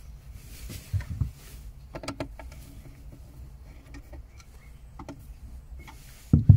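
Handling noises as electrical tape is wrapped around the ends of amplifier power cables: scattered light clicks and rustles, with a louder thump near the end.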